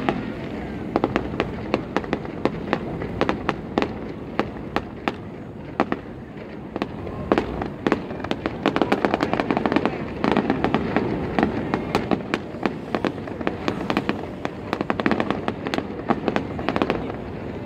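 Fireworks going off in a dense stream of sharp pops and bangs, several a second, thickest in the second half.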